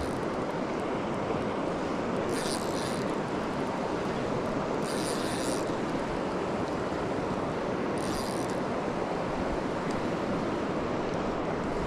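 Steady rushing of a river's flowing water, with three short high-pitched buzzes about two and a half seconds apart.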